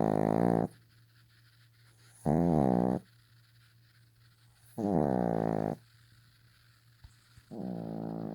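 A sleeping dog snoring: drawn-out, wavering, pitched snores about every two and a half seconds, each lasting roughly a second, the last one softer.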